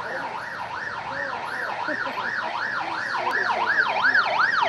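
Emergency vehicle siren wailing rapidly up and down, about three cycles a second, growing louder as the vehicle approaches.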